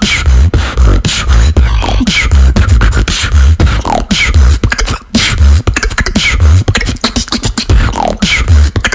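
Vocal beatboxing: a steady beat of deep bass kicks and sharp snare-like clicks, with sliding vocal sweeps falling in pitch. It cuts off abruptly at the end.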